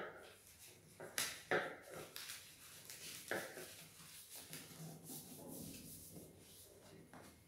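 A sheet of paper being folded and creased by hand against a table: rustling and crinkling, with sharper crackles at the start, about a second in and again about three seconds in.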